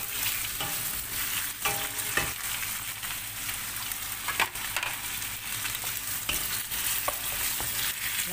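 Chicken pieces frying in hot oil with onion and garlic, sizzling steadily with scattered pops as the oil spatters, while a wooden spoon stirs and scrapes them around a nonstick pan.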